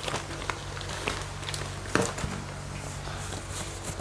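A few scattered light clicks and knocks of objects being handled, the strongest about two seconds in, over a steady low hum.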